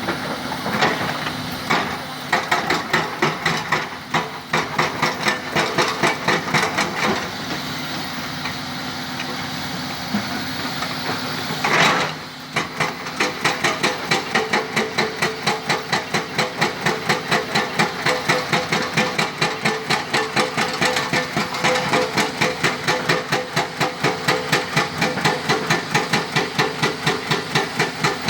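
Excavator working in a stone quarry, its engine running under a hammering load: irregular knocks at first, then from about halfway through a fast, very regular pounding of roughly three to four blows a second.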